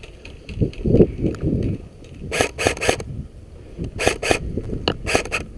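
Airsoft rifle firing short bursts: a quick run of three sharp shots, then two, then a few more near the end, with dull thumps of movement just before.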